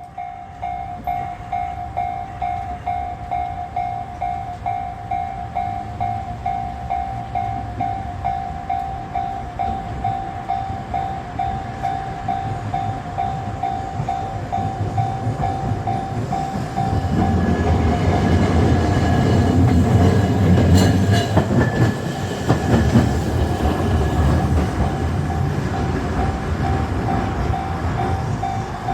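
Level-crossing warning bell ringing in a steady pulse about twice a second. About halfway through, Kagoshima City trams rumble through the crossing, their wheels clacking over the rails around 21 seconds in, while the bell keeps ringing.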